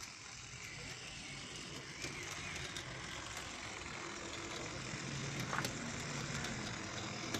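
H0-scale model locomotive running along metal Märklin track: a steady small-motor whir and wheel noise, with a few sharp clicks.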